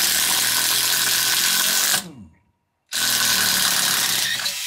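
Makita pen-type cordless impact driver driving a coarse-thread wood screw into a wooden board, with the impact mechanism hammering. It runs in two bursts: it winds down with a falling whine about two seconds in, then starts again about a second later.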